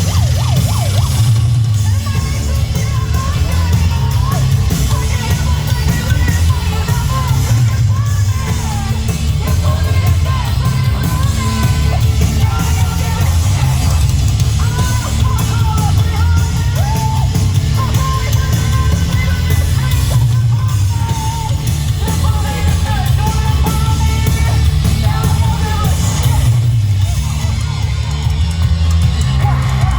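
Live rock band playing loud, with heavy bass and drums under a yelled, wavering lead vocal.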